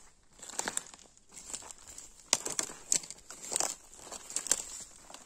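Irregular rustling and crackling of dry leaves and twigs on the forest floor being disturbed, with a few sharp snaps in the middle.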